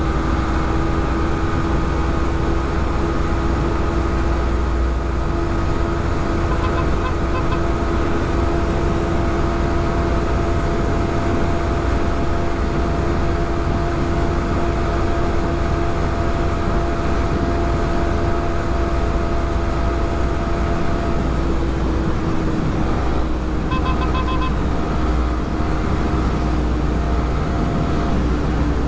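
Motorcycle engine running at a steady cruising speed, its note holding level, under heavy low wind rumble on the microphone.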